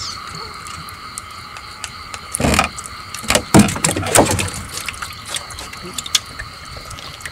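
Crickets and other night insects trilling steadily. From about two and a half to four and a half seconds in come a cluster of loud wet slaps and knocks as freshly caught walking catfish are handled and dropped into the boat's hold.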